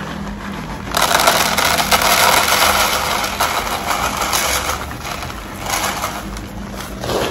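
Granulated corn cob bedding pouring out of a plastic bag onto the floor of a plastic basket. It makes a steady pouring rush that starts about a second in and fades over the last two seconds.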